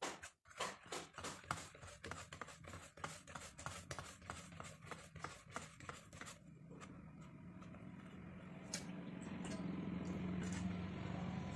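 Hand rolling and patting a soft ball of jowar (sorghum) dough on a steel plate: a quick run of soft slaps and scrapes. About six seconds in this gives way to a low steady hum that grows louder, with a few light clicks.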